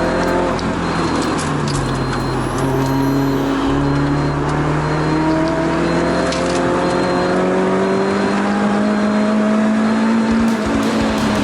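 Lotus Elise Sport 220 II's supercharged four-cylinder engine heard from inside the car on track. Its pitch shifts about two and four seconds in, then climbs slowly under load for several seconds before falling near the end as the driver lifts off.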